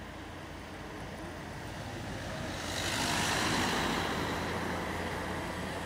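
Street traffic noise: a steady low hum under the sound of a vehicle passing, which swells to a peak about three seconds in and then eases off.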